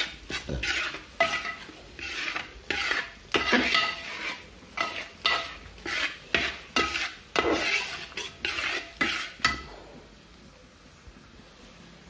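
A metal spoon or spatula stirring food frying in a pan: repeated scraping and knocking strokes, about one or two a second, over a light sizzle. The stirring stops about ten seconds in.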